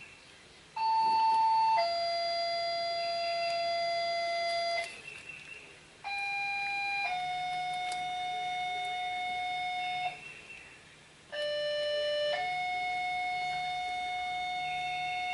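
An electronic two-note chime sounds three times, each time a short note followed by a steady held note lasting about three seconds, with brief gaps between.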